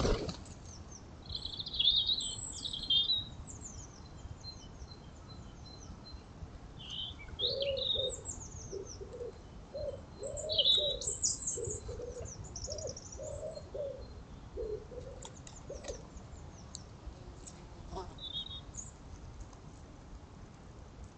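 Woodland birdsong: small birds chirping in short, scattered phrases. Through the middle, a run of low, evenly paced cooing notes from a wood pigeon. A single sharp click at the very start.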